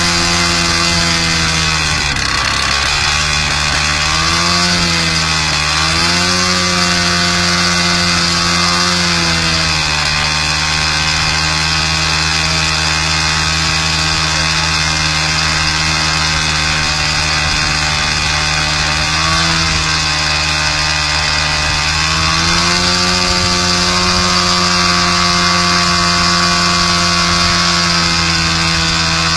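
Motorcycle engine of a homemade light aircraft running steadily. Its speed dips briefly and recovers about two and five seconds in, and again around twenty seconds in.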